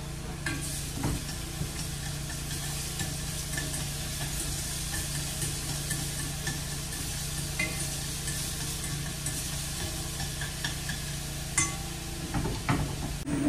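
Minced pork and garlic stir-frying in hot oil in a frying pan: a steady sizzle with a few light clicks now and then.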